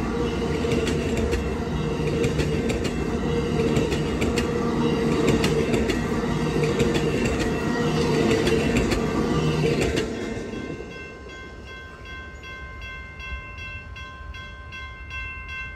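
Amtrak California Zephyr passenger train rolling past: a steady rumble with wheels clicking over rail joints. About ten seconds in the rumble drops away as the train goes by, leaving a quieter ringing tone that pulses regularly.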